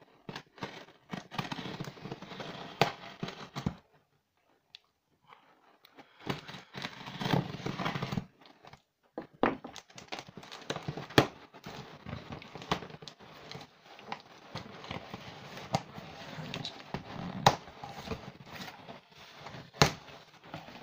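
Cardboard box being cut and opened by hand with a tool: scraping, crackling cardboard and tape sounds in bursts, with scattered sharp clicks and a pause of about two seconds around four seconds in.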